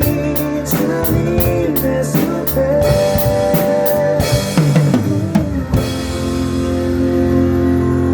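Drum kit played along to a worship-song backing track with guitar: steady cymbal strokes, then a drum fill around four to five seconds in that lands on a crash and a long held chord.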